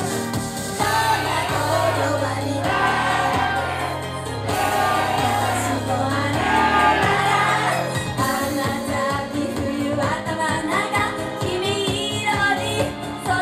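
Japanese idol group singing a pop song live, many female voices together into microphones over a backing track with a steady bass and beat, heard through the venue's PA.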